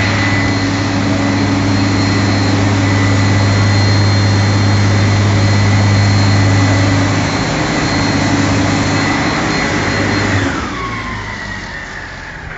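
Fire engine running loud and steady with a high whine over a low hum. Near the end the whine falls in pitch and the sound dies away as it winds down.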